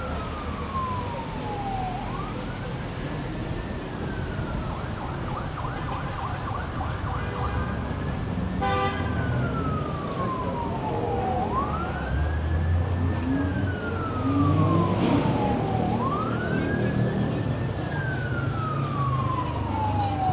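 Emergency vehicle siren wailing over street traffic, each cycle a quick rise in pitch then a slower fall, repeating about every four and a half seconds and growing louder past the middle. A short horn blast sounds about nine seconds in.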